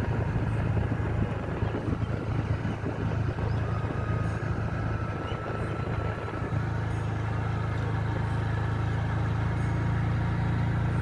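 Steady drone of a moving vehicle with wind rushing over the microphone while riding along a highway.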